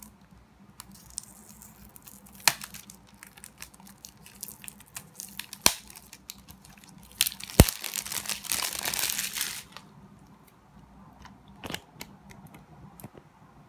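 Plastic shrink-wrap being cut and peeled off a Blu-ray case: scattered crinkles and clicks, a single sharp click about seven and a half seconds in, then about two seconds of continuous tearing and crinkling of the film.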